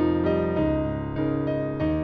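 Casio Privia PX-S7000 digital stage piano playing one of its factory keyboard sounds: a slow run of held chords and notes, a new one struck about every half second.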